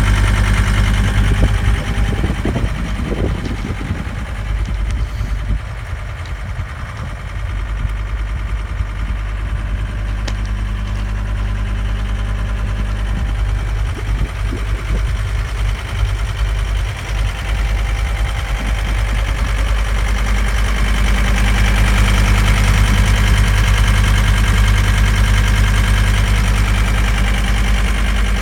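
A John Deere 329D skid steer's 86 HP Yanmar turbo diesel engine running steadily, with a few brief clattering knocks about two seconds in and again about halfway through. Past the two-thirds mark the engine gets louder and brighter, as if the revs come up.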